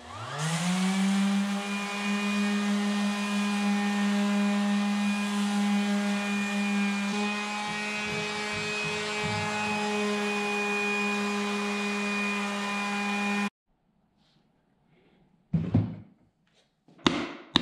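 Electric random orbital sander spinning up and then running steadily with a high whine while it sands old blue paint off a plywood board. It cuts off suddenly about thirteen seconds in, and a few short knocks follow near the end.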